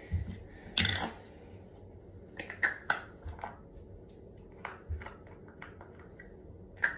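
Small plastic pot and its lid clicking and tapping in the hands as it is forced shut: the lid is hard to close. Irregular sharp clicks come in scattered clusters, thickest around the middle.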